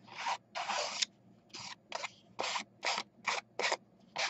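Edges of a paper card swiped across a plum archival ink pad: a run of about nine short scraping strokes, two longer ones first, then shorter, quicker ones about twice a second.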